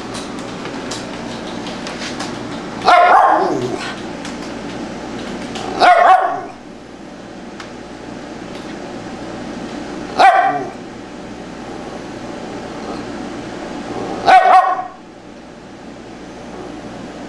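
Tibetan Spaniel barking: four single barks, about four seconds apart.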